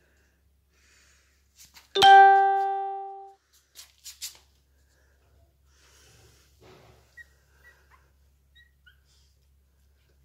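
A single loud chime-like ding about two seconds in, ringing and fading over a little more than a second. A few sharp clicks follow. Later come faint scuffling and several short, high squeaks from four-week-old puppies.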